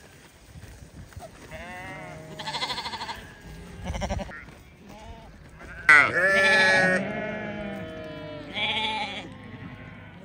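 Sheep bleating in a flock: several separate bleats from different animals, the loudest a long bleat starting sharply about six seconds in.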